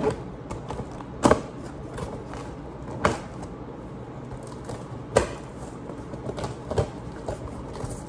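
Large cardboard shipping box being handled and opened, with four sharp knocks and scrapes of cardboard spread a second or two apart and rustling between them.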